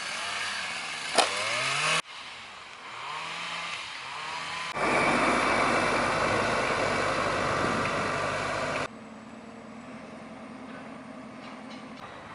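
Street traffic: car engines running and vehicles passing, the sound changing abruptly several times. It is loudest from about five to nine seconds in and quieter after that.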